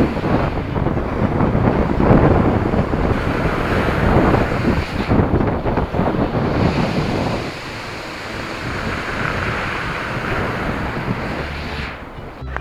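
Storm waves breaking and surging on the shore, with wind buffeting the microphone. The surf is loudest in the first half and eases a little after about seven seconds.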